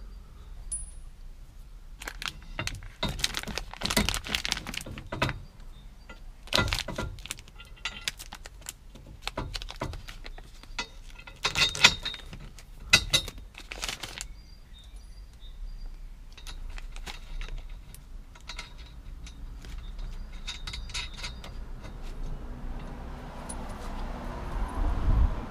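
Loose steel roll-cage mounting bolts and spacers clinking and jingling together as they are handled, in scattered clusters of sharp clicks. A rustling rumble builds near the end.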